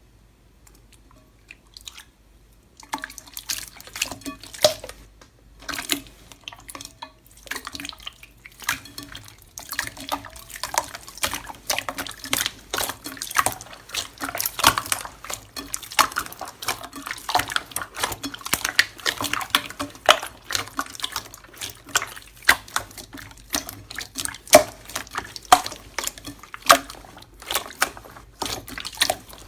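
Slime being squished and worked by hand: a dense, irregular run of wet clicks and pops that starts about three seconds in.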